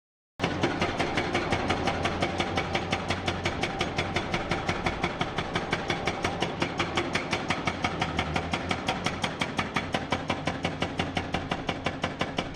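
Large diesel engine of a Hyundai R1200-9 hydraulic excavator running steadily, with a fast, even pulsing of about six beats a second.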